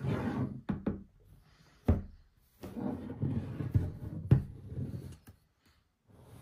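Packaging being handled during an unboxing: rustling with several sharp knocks and clicks, the loudest knock about four seconds in.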